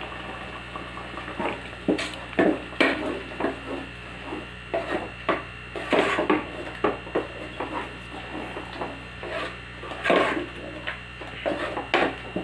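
Wooden spatula stirring and scraping a thick curry masala around a pot in short, irregular strokes, several a second. The spice powders and salt that were just added are being fried into the tomato-onion paste with the prawns.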